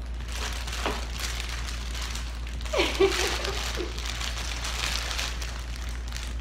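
Crinkling and rustling of paper and plastic wrapping being handled, with many small crackles, over a steady low hum.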